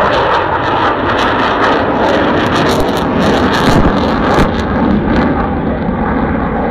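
Sukhoi Su-27 fighter's twin turbofan engines passing overhead: loud, steady jet noise, easing slightly near the end.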